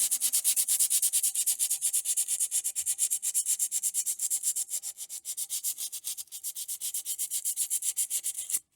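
Rapid back-and-forth hand scrubbing of bare metal with an abrasive, as in cleaning up a steel frame part for paint, at about seven strokes a second. It stops abruptly near the end.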